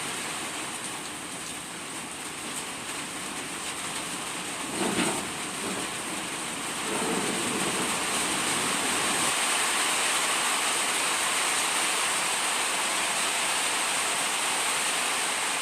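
A steady rushing hiss, with a brief louder sound about five seconds in.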